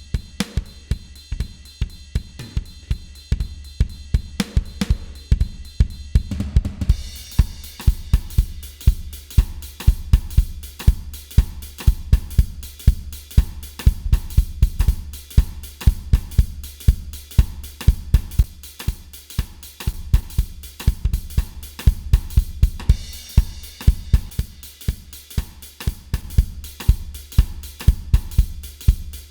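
Recorded drum kit (kick, snare, hi-hats and cymbals) playing a steady beat through an Allen & Heath GL2400 analog mixing console, with its 80 Hz low-shelf EQ boosting the low end so the kick sounds heavy. The cymbals and hi-hats get brighter about seven seconds in.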